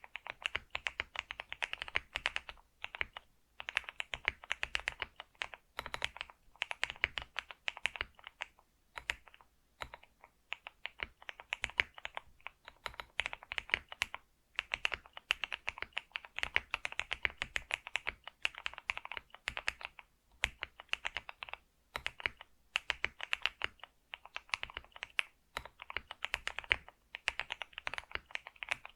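Computer keyboard being typed on steadily, fast runs of key clicks with brief pauses between words and phrases.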